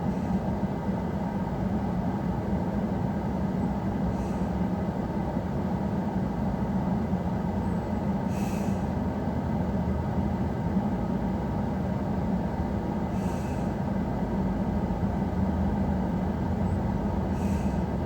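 Steady low rumble of vehicle cabin noise, even throughout, with a faint short hiss repeating about every four seconds.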